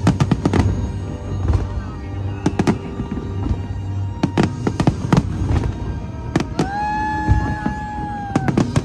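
Fireworks going off in a rapid, irregular string of loud bangs, with a long steady high tone held for almost two seconds near the end.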